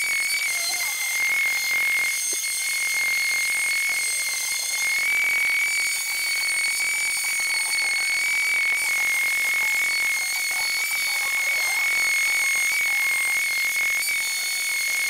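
Electric palm sander running with a steady high-pitched motor whine while sanding plywood.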